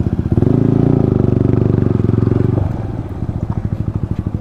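Yamaha MT-15's 155 cc single-cylinder engine and exhaust at low speed, each firing pulse distinct. The throttle opens for about two seconds, holding a steady higher note, then closes and the engine drops back to low revs.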